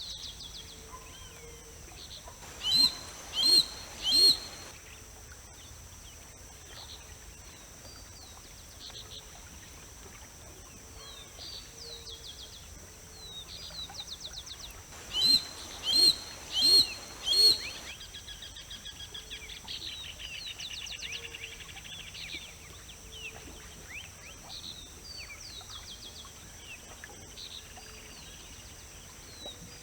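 Harris's hawk giving short, harsh calls in two bouts: three notes about three seconds in, then four more about fifteen seconds in. Small birds chirp faintly throughout over a steady high hiss.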